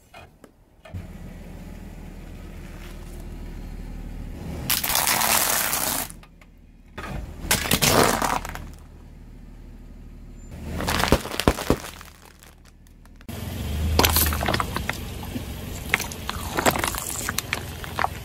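A car tyre slowly rolling over and crushing brittle objects: three separate bursts of cracking and shattering a few seconds apart. After a sudden change, a busier run of short sharp cracks as plastic sauce bottles are squashed flat.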